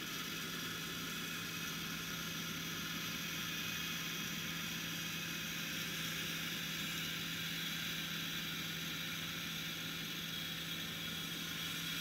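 A farm machine's engine running steadily: a constant low hum with an even hiss over it.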